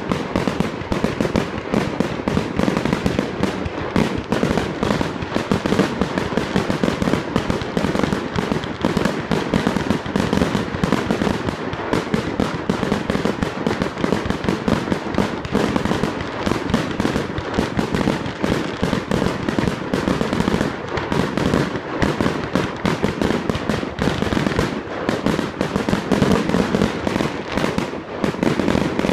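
Fireworks display: a dense, unbroken run of bangs and crackling from aerial shells bursting overhead, many reports a second.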